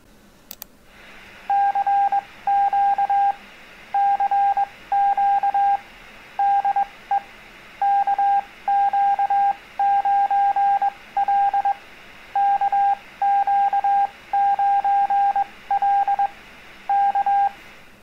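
Morse code (CW) tone, a single steady note keyed on and off in dots and dashes, sending 'CQ CQ CQ DE KQ9L KQ9L KQ9L K': a station calling CQ, an invitation for any station to answer. A faint steady hiss lies under it.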